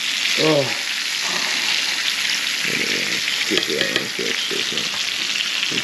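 Fish fillets frying in hot oil in a cast-iron skillet, with a steady sizzle.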